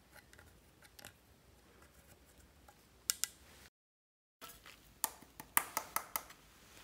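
Pink plastic spatula scratching crumbled eyeshadow in a makeup palette, then a quick run of about eight sharp plastic clicks and taps near the end as the palette and spatula are knocked to shake the powder off into the slime.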